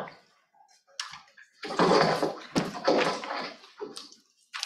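Rustling and handling noise close to a microphone, in several bursts with a few short knocks, loudest about two to three seconds in.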